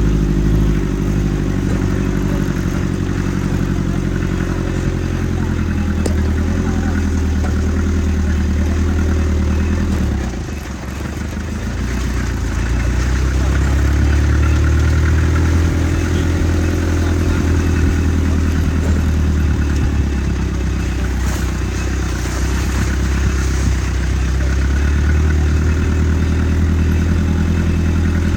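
Vehicle engine running steadily while driving off-road. About ten seconds in it eases off briefly, with the pitch dropping, then picks up again.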